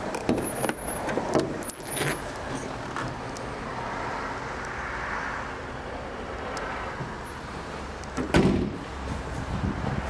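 Bonnet of a Ford S-Max being worked by hand: a few clicks and knocks in the first two seconds as the catch is released and the bonnet raised, then one loud thud about eight seconds in as the bonnet is shut.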